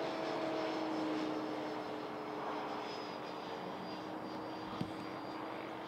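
The 105 mm electric ducted fan of an HSD Super Viper RC jet in flight: a steady fan whine with a high tone that dips slightly in pitch as it fades a little. A brief sharp click about five seconds in.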